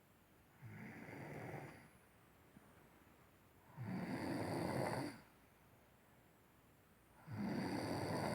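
Snoring in sleep: three rasping snores, each about a second long and spaced about three seconds apart, the second and third louder than the first.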